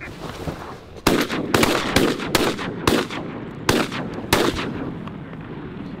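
Several hunters' shotguns firing at ducks in a rapid volley, about seven shots in some three and a half seconds, starting about a second in.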